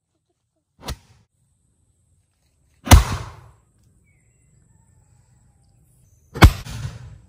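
Bamboo cannon firing three times: a weaker pop about a second in, then two loud booms about three and a half seconds apart, each with a short rumble after it.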